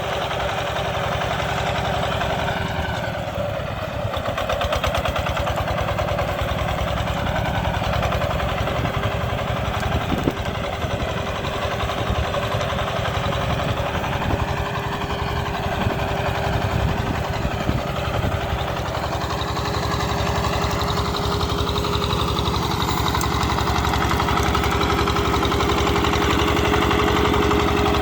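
Single-cylinder diesel engine of a walking tractor (power tiller) chugging steadily under way, with a thin steady whine underneath; it gets slightly louder near the end.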